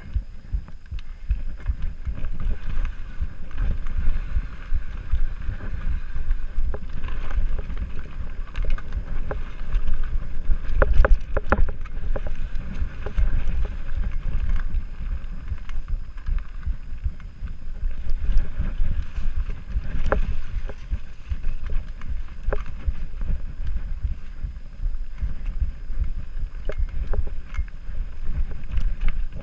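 Mountain bike riding down dirt singletrack: steady low rumble of tyres and wind buffeting on the microphone, broken by sharp clatters of the bike over rough ground, with the busiest clatter about eleven seconds in and another around twenty seconds.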